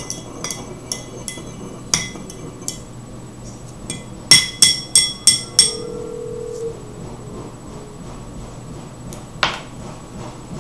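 Metal tweezers and a penny clinking against a glass cup as the penny is shaken in a vinegar-and-salt solution to clean off its tarnish. A few light taps come first, then a quick run of five loud, ringing clinks about four seconds in, and one more knock near the end.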